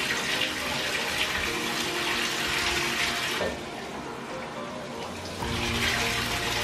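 Water running into a bathtub from a tap as a steady rush. It cuts back about three and a half seconds in and comes back on about two seconds later.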